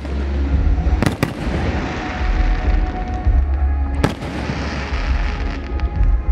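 Aerial fireworks bursting overhead: two sharp bangs close together about a second in and another about four seconds in, with dense crackling between them and a steady low rumble underneath.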